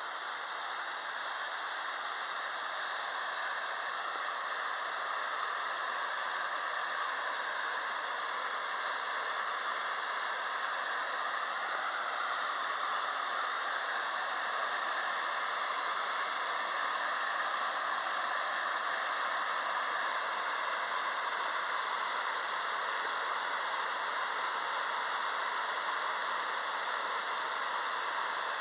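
Steady rushing of water pouring over a river waterfall.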